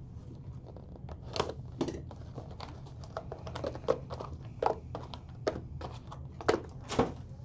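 Trading-card box and pack wrappers being torn and crinkled open by hand: irregular crackles and short rips, a dozen or so sharper ones scattered through.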